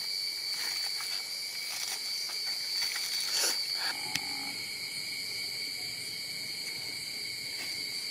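Night insects chirring steadily at two high pitches. Over the first four seconds or so there is irregular crinkling of aluminium foil as a foil-and-banana-leaf packet is opened.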